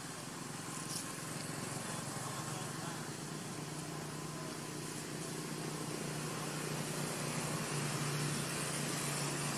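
An engine running steadily with a low hum over a constant hiss, growing a little louder about three quarters of the way through.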